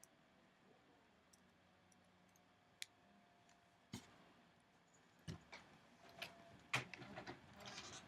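Faint, scattered small clicks and taps of tiny screws being driven back into a laptop's LCD screen brackets: a few isolated clicks at first, then quicker clusters in the last three seconds.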